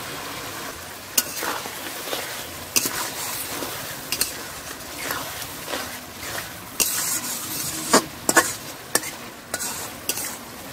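A spatula stirring fried potatoes into a simmering masala in an iron kadai: a steady sizzle of the bubbling gravy, with irregular scrapes and knocks of the spatula against the pan.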